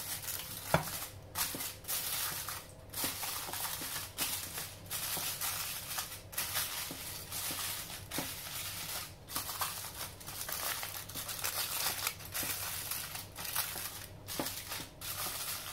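Aluminium foil crinkling and crackling in irregular bursts as it is folded and pressed down over a baking dish, with one sharp click about a second in.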